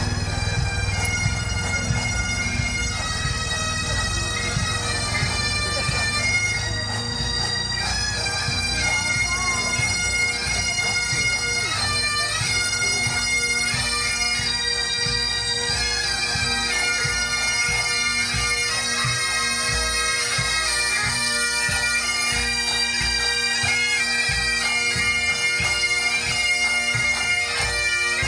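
A pipe band playing a march: Highland bagpipes with their steady drones under the chanter melody, and snare, tenor and bass drums beating along.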